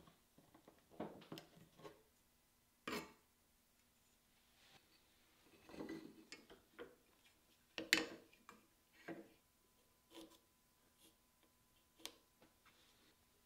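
Faint, scattered light taps and clicks as a sliding bevel and a small block of wood are handled and set down on a workbench. The loudest knock comes about eight seconds in.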